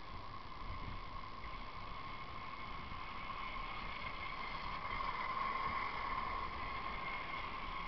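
Drift trikes' hard-sleeved rear wheels rolling and sliding down an asphalt road: a steady scraping hiss with a whine in it, a little louder about five seconds in.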